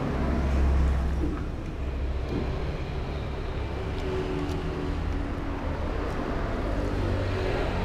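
Low, steady rumble of a motor vehicle engine running close by, with a few faint clinks of a spoon against a bowl.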